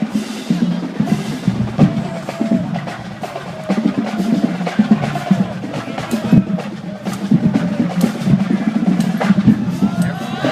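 Marching band drumline playing, with rapid snare drum strikes and bass drum hits.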